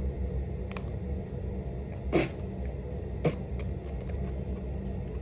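A girl clearing her throat with two short coughs, about two and three seconds in, trying to shift something caught in her throat, over a steady low hum.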